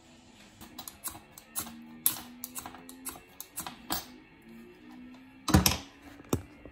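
A hand file and a small steel can opener cut from a saw blade clicking and scraping together in the hands, with a few irregular sharp clicks each second. A louder thump and rustle come near the end as the camera is picked up.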